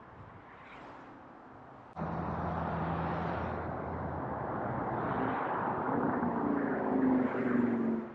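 Street traffic noise: a vehicle's engine and tyres, coming in abruptly about two seconds in and growing louder, with an engine note rising near the end before cutting off.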